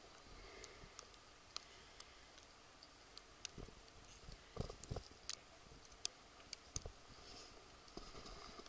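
Near silence with faint, irregular clicks, about one or two a second, and a few soft knocks around the middle.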